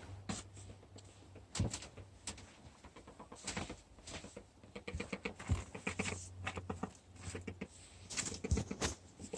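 A four-year-old hen making an odd, repeated low vocal noise, with irregular knocks and rustles. The owner wonders whether it means she is starting to go broody.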